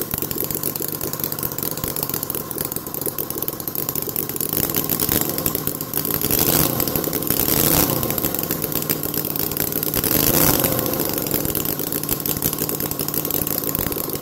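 Miniature 90-degree V4 four-stroke model engine running. Its uneven firing order (1, 3, 2, 4 at 180, 270, 180 and 90 degrees) gives it its unique sound. It is revved up briefly twice: about six to eight seconds in, and again about ten seconds in.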